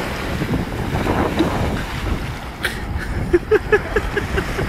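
Wind buffeting the microphone over breaking surf, with splashing as a bicycle and its rider plunge into the shallow sea. From about three seconds in, someone laughs in quick bursts.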